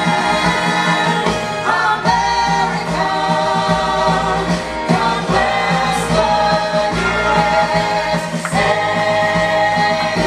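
Stage-show music with a cast singing together in long held notes.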